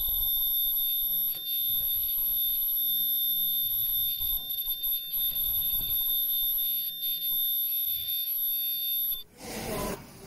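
A steady, high-pitched electronic tone from the disposable mask machine that cuts off abruptly about nine seconds in, with faint knocks of hands on the machine's metal parts.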